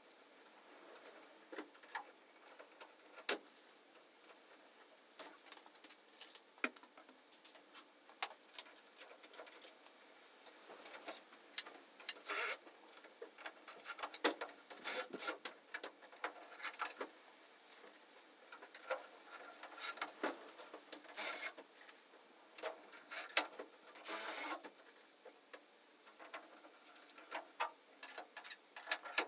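A polycarbonate windscreen being handled and fitted against the metal canopy frame of a microlight: scattered small clicks and taps, with a few brief scraping rustles.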